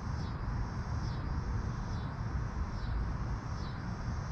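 Outdoor background: a steady low rumble with a faint high chirp that repeats a little more than once a second, like an insect calling.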